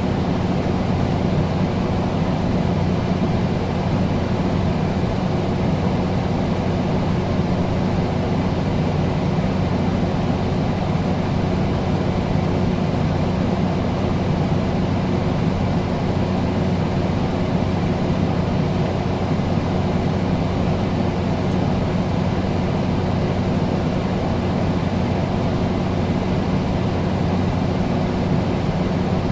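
Air conditioner running steadily: an even rush of air with a low, constant hum beneath it.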